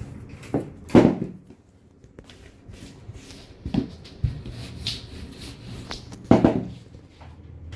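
Kitchen work noises: a handful of sharp knocks and thumps from handling dough and utensils on a worktop, the loudest about a second in and another just after six seconds, with quieter rustling between and a low steady hum joining about four seconds in.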